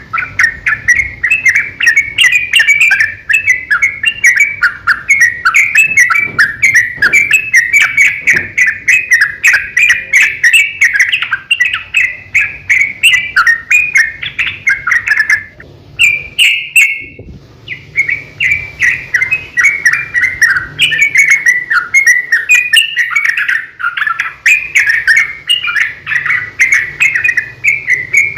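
Yellow-vented bulbul (trucukan) singing a long, rapid run of chattering, bubbling notes, with a brief break about sixteen seconds in.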